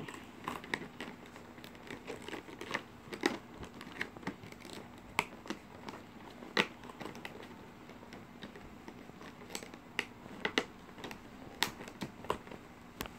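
Clear plastic packaging being handled and pried at by hand, crinkling with irregular sharp clicks and crackles; the tight-fitting box does not open easily.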